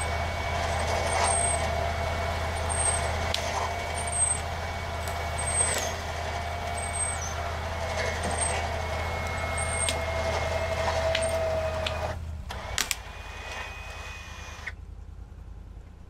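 A Can-Am Defender HD10 UTV's engine runs steadily under load while a fallen tree is dragged off the trail, with sharp cracks and snaps of wood several times as the tree gives way. The engine noise stops about twelve seconds in.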